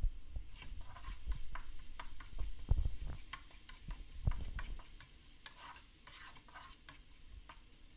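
A wooden spatula stirs and scrapes chopped garlic frying in oil in a frying pan, in quick irregular strokes with a few louder knocks against the pan. The stirring gets quieter after about five seconds.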